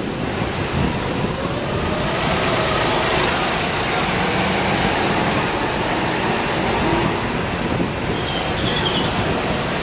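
Go-kart motor noise from a kart driving close past, growing louder about two seconds in and then holding steady.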